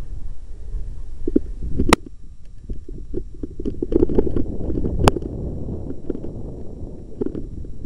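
Bike rolling fast over a bumpy dirt forest trail: a steady low rumble from the tyres, with frequent rattles and two sharp clacks about two and five seconds in.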